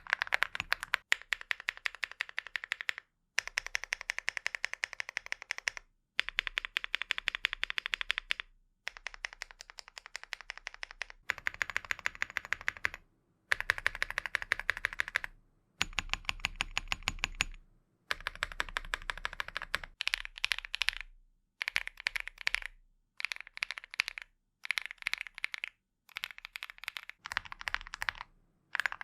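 Fast typing on a mechanical keyboard with KTT Coconut Latte switches, in a sound test comparing Awekeys full metal keycaps with ABS keycaps. It comes as a series of short typing clips, each a quick run of key clacks, cut apart by brief silences.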